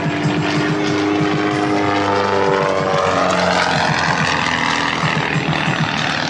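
Aerobatic airplane's engine running overhead, its pitch sliding slowly down and then rising again as it maneuvers.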